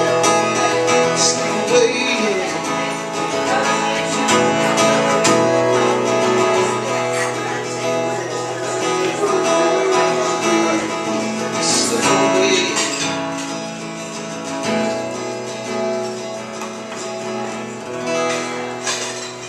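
Acoustic guitar played solo, strummed and picked chords ringing on, getting quieter over the last few seconds.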